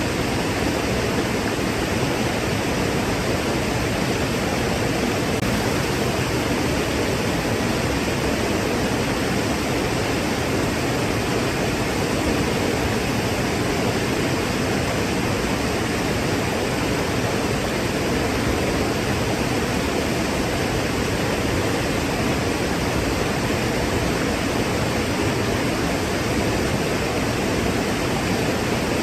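Waterfall: a steady, unbroken rush of falling water, even throughout with no individual splashes standing out.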